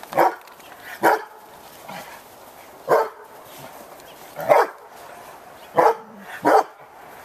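A dog barking: about six short, sharp barks at uneven intervals.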